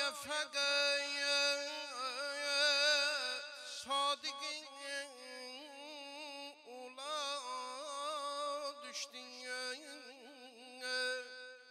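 Male vocalist singing an Islamic devotional song in long, ornamented phrases, his pitch wavering in melismatic runs over a steady low held note.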